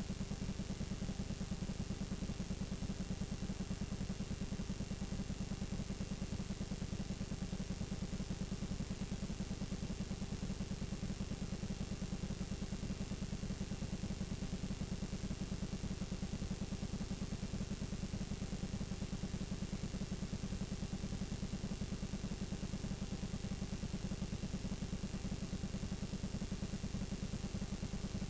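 Steady low buzzing hum with an even hiss over it, unchanging throughout: the noise of a blank, unrecorded stretch of videotape.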